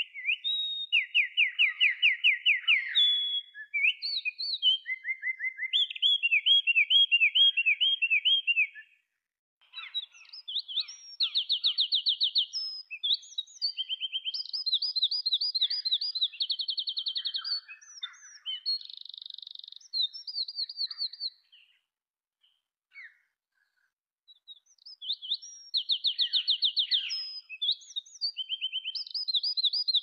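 A wren singing: long, loud songs of rapid trills and twitters run together. There are three long bouts, with a brief pause about nine seconds in and a longer one about two-thirds of the way through.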